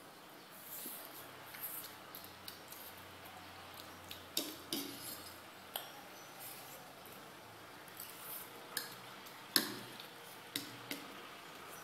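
Metal forks clinking and scraping on ceramic plates as two children eat noodles: a scatter of sharp clicks, the loudest about nine and a half seconds in.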